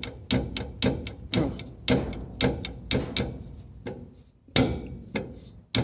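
A loose part on a Ford Del Rey's rear stabilizer bar knocking in a series of sharp clunks, about two a second with a short pause in the middle. This is the rear-wheel knock over rough road that is hard to trace.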